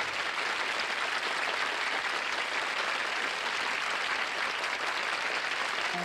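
Audience applauding steadily after a song, with music coming back in at the very end.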